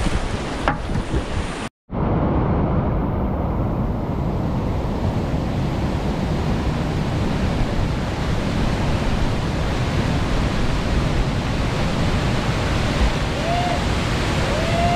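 Loud, steady rush of whitewater rapids pouring between boulders. The roar drops out for a split second about two seconds in, then returns unchanged.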